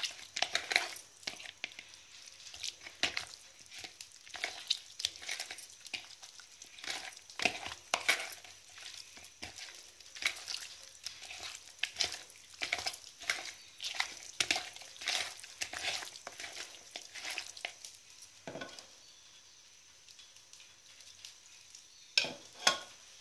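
Raw chicken pieces being squeezed and turned by hand with black pepper in a bowl, making irregular wet squelching and slapping sounds. The squelching stops for a few seconds near the end, then two more sharp squelches come just before it ends.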